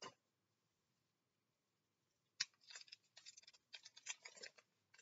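Pokémon booster pack wrapper being opened and handled: a sharp snap about two and a half seconds in, then about two seconds of faint crinkling and scratching, and a couple more small crackles near the end.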